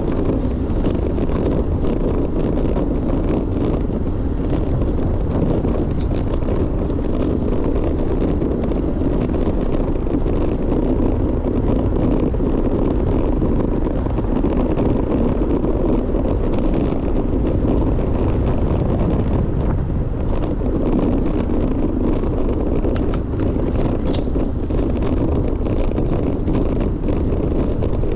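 Steady wind rushing over the microphone of a GoPro Hero 9 while riding a road bike: a constant low rumble. A few sharp clicks stand out, one about six seconds in and two or three more near the end.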